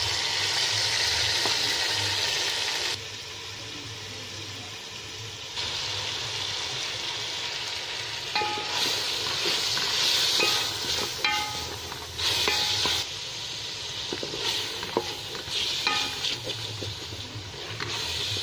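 Food sizzling as it fries in oil in a cooking pot while it is stirred. From about eight seconds in, short clinks and scrapes of a utensil against the pot come through the sizzle.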